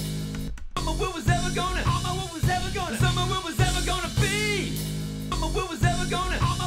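A song's mix playing back: sung vocals over a drum beat and bass, with one vocal part panned off to one side. The music drops out for a moment about half a second in.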